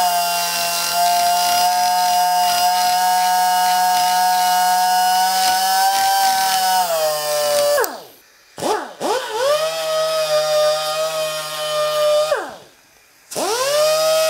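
Die grinder spinning at high speed with a steady high whine as a burr and sanding roll break the sharp corner at the rod-bolt seat of a Datsun L28 connecting rod. The motor winds down and stops about eight seconds in, runs again for a few seconds, stops again, and starts back up near the end.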